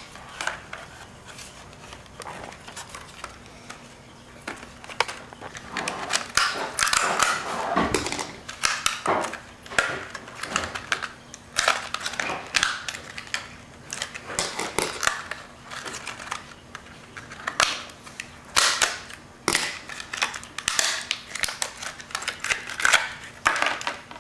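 Plastic packaging of a diecast toy car being bent, crinkled and torn open by hand: irregular sharp crackles and snaps in several bouts, with quieter rustling between.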